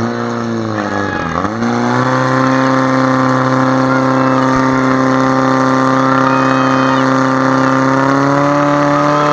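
Portable fire pump engine run at full throttle, driving water through the attack hoses. The revs dip briefly about a second and a half in, then hold a steady high pitch, rising slightly near the end.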